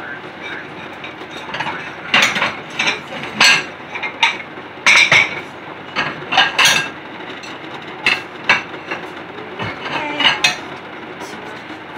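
Dishes and utensils clattering and clinking on a kitchen counter as things are laid out: a string of irregular sharp knocks and clinks, some ringing briefly.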